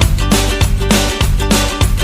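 Background music: an upbeat guitar track with a steady driving beat.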